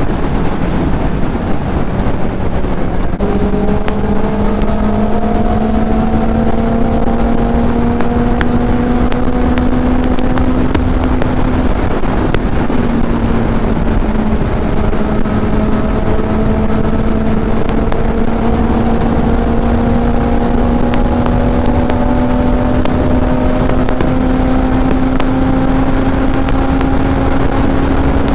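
Kawasaki Z800 inline-four engine at highway speed, its note climbing slowly under load, with the pitch dipping briefly twice, about three and twelve seconds in. A steady rush of riding wind on the microphone runs underneath.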